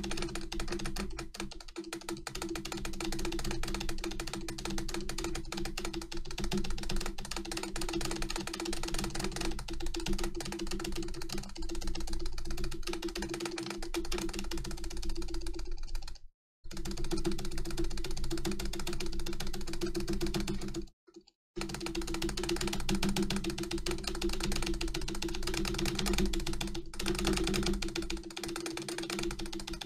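Rapid, continuous tapping on an Acer computer keyboard's spacebar, about seven presses a second, over background music. The sound cuts out twice, briefly, about halfway through and again a few seconds later.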